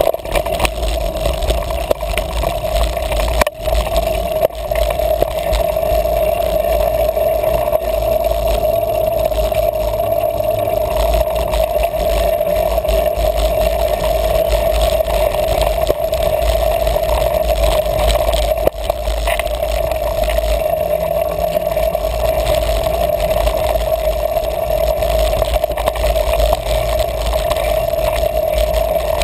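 A mountain bike riding over a dirt singletrack, heard through a bike-mounted action camera: a steady rumble of trail vibration and wind on the camera housing, with rattling. A constant mid-pitched hum runs through it.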